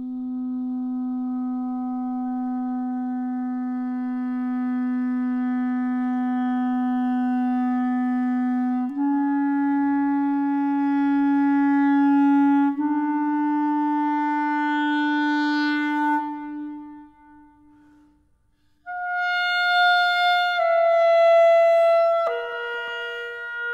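Background music: a clarinet playing slow, long-held notes. A low note is held for about nine seconds, then two slightly higher ones follow. The phrase fades out, and after a short pause a higher phrase begins.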